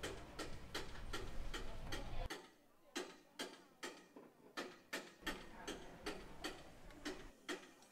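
Steady clock-like ticking, about two and a half ticks a second. A low wind rumble cuts in and out underneath.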